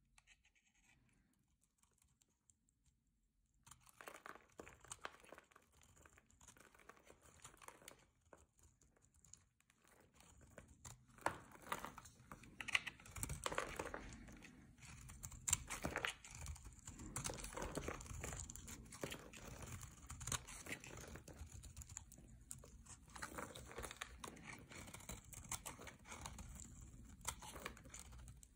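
A pink Roxy rose bar soap being shaved with a metal blade: crisp scraping and crackling as flakes and curls break off. Almost silent for the first few seconds, then the scraping grows steadily denser from about ten seconds in.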